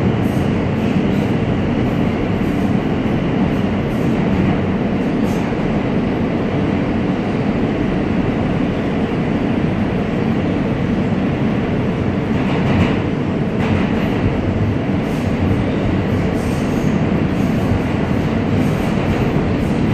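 Steady rumble and wheel-on-rail noise of a New York City Subway R160A car running at speed, heard from inside the car, with a brief higher-pitched patch about two-thirds of the way through.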